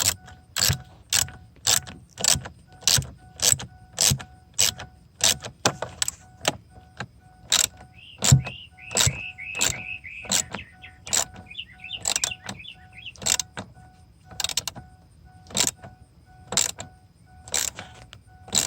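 Hand tool working on a truck's battery terminal clamp: a steady run of sharp metallic strokes, about two a second, with a squeaky scraping stretch midway.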